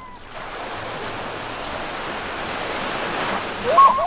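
Surf at the shore: a wave washing in, its rushing noise building over a few seconds. Near the end, a few short high-pitched cries rise above it as the loudest sound.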